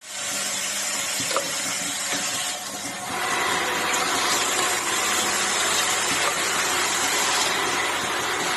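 Automatic aerosol-cap assembly machine running: a steady hiss-like machine noise, with one sharp click about a second and a half in.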